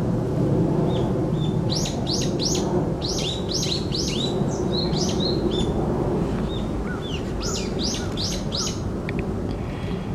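Brown-eared bulbuls calling: quick series of shrill, sharply rising notes in two bouts, about two seconds in and again about seven seconds in, with fainter short notes between and steady low background noise underneath. The uploader takes the calling for an earthquake warning.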